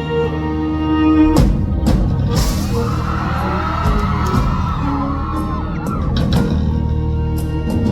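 Loud live rock band music: a held chord, then drums and guitar crash in about a second and a half in, with the audience screaming over it for a few seconds.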